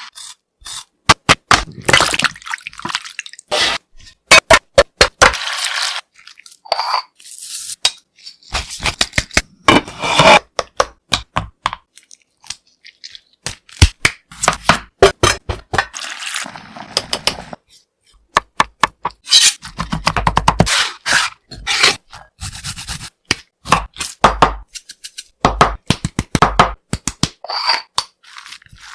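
Raw chicken being cut up in the kitchen: many sharp cutting clicks in irregular clusters, with short scrapes between them.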